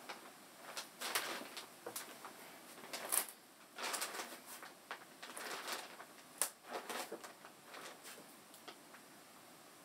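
Irregular rustling and shuffling of a person moving about on and around a large sheet of calligraphy paper spread on the floor, with a couple of sharp taps about three and six and a half seconds in.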